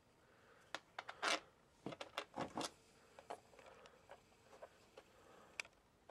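Handling noise from thin coaxial cable being moved by hand: a quick run of clicks and rustles from about one to three and a half seconds in, then scattered faint ticks and one sharp click near the end.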